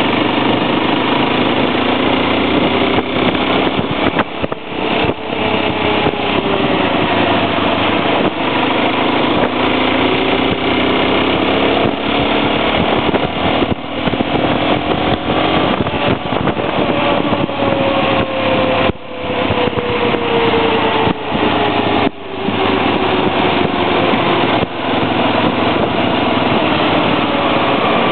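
Honda 250 motorcycle engine running while ridden, its pitch rising and falling with the throttle, easing off briefly a few times, under a constant rush of wind noise.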